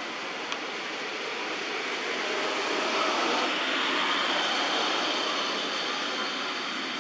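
Steady outdoor background rush that swells a little around the middle, with one faint tick about half a second in.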